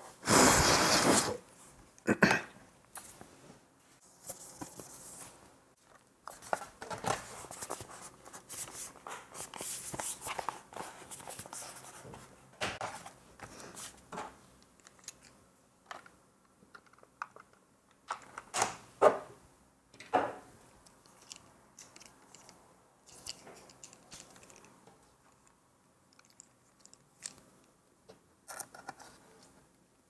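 Handling sounds of a MacBook being put back together by hand: a loud burst of rustling noise lasting about a second at the start, then scattered clicks, taps and rustles of the aluminium bottom case, small parts and tools, growing sparse toward the end.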